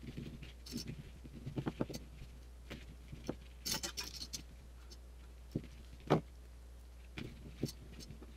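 Hands handling small plastic toys on a tabletop: irregular taps, clicks and rustling, with a sharp knock about six seconds in, over a steady low hum.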